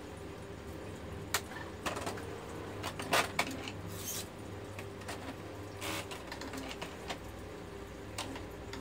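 Brother GX-6750 electronic typewriter being handled: a handful of irregular clicks and short rattles, the loudest about three seconds in, over a steady low hum.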